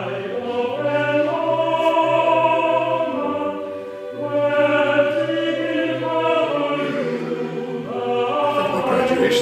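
A choir singing slow, held chords, with a short break between phrases about four seconds in.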